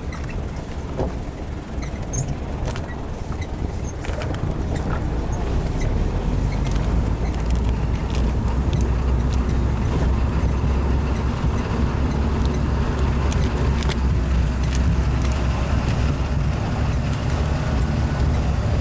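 Four-wheel-drive jeep driving over a rough gravel track, its engine a steady low rumble under road noise, with scattered rattling clicks. The engine gets louder after about five seconds and then holds steady.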